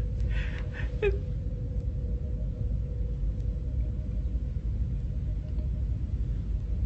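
Steady low rumble with a faint steady hum: the ambient engine hum of a starship interior, a TV sound effect. The last of a man's laughter trails off in the first second.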